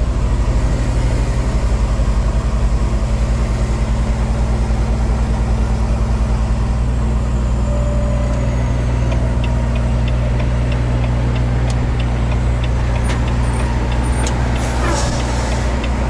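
Semi truck's diesel engine running steadily, heard from inside the cab while driving, with a deep pulsing hum. In the second half, a run of light, evenly spaced ticks sounds over the engine.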